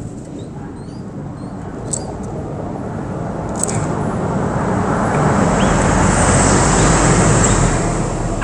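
A road vehicle passing, its engine and tyre noise swelling over several seconds and easing slightly near the end. A few faint bird chirps come in the first second.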